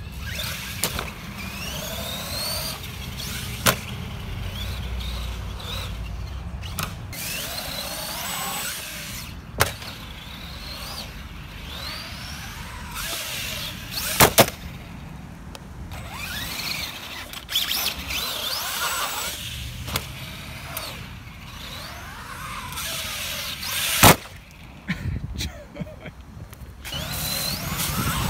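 Arrma Granite 4x4 BLX RC monster truck driving on wet concrete, its brushless electric motor whining up and down in pitch as the throttle is worked. A few sharp bangs come through as the truck lands from jumps, the loudest near the middle and towards the end.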